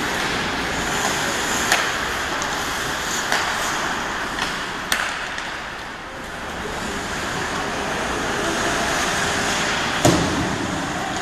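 Ice hockey play: a steady hiss of skates on the ice and rink noise, broken by several sharp clacks of stick on puck, the loudest about ten seconds in.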